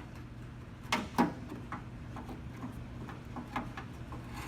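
Light metallic clicks and knocks as the key lock cylinder is worked out of a 1971 Mustang door, with the loudest pair of knocks about a second in.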